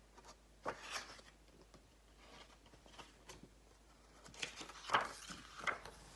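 Paper pages of a picture book being turned and handled: soft rustles and light clicks, a couple about a second in and a cluster near the end.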